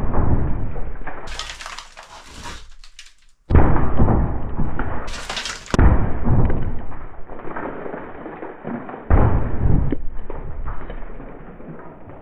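Plasterboard wall lining being punched through and ripped away by hand: cracking, crunching breaks of the board, one at the start and others about three and a half, six and nine seconds in, with crumbling and falling debris trailing after each.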